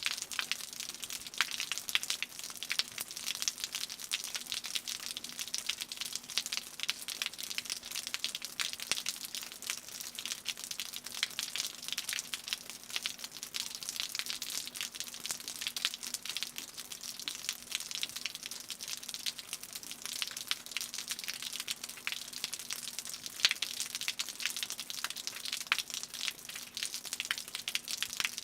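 Rainwater dripping off a roof: a dense, continuous patter of many small, sharp drops and splashes. A faint steady hum lies beneath it.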